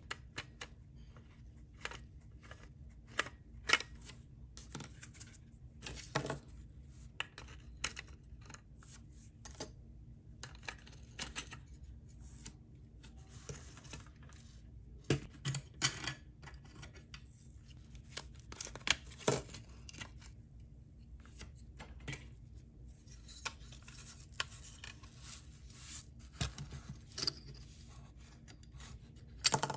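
Irregular small clicks and taps of a screwdriver and small metal tools on the plastic chassis and parts of a die-cast model car being taken apart. A few louder knocks stand out, and there is a sharp click near the end.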